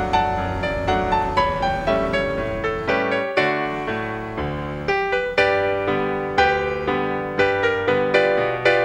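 Background music on piano-style keyboard: a light melody of struck notes, about two or three a second, over a moving bass line.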